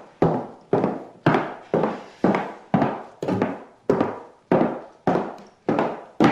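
Footsteps on a wooden floor at a steady walking pace, about two steps a second, each a thud that rings out briefly.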